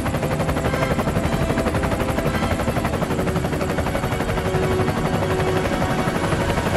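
Kamov Ka-52 helicopter's coaxial rotors beating in a rapid, even chop, holding steady as it flies low, with a faint engine hum underneath.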